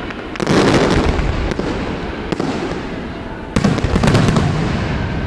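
Aerial fireworks shells bursting overhead: two loud bursts about three seconds apart, each dying away in a long rumbling, crackling tail.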